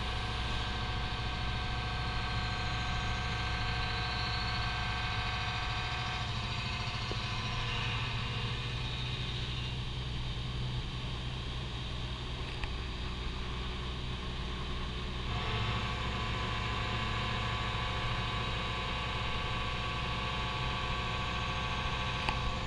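TOS WHN 13 CNC horizontal boring mill running and machining a steel workpiece: a steady low hum with a whine of several steady tones on top. The whine fades out after about six seconds and comes back abruptly about fifteen seconds in.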